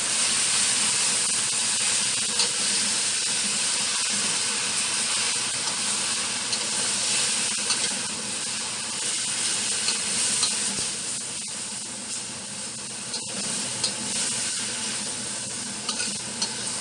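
Enoki mushrooms and garlic sizzling in a hot wok as they are stirred, a steady frying hiss with a few light clicks of the utensil against the pan.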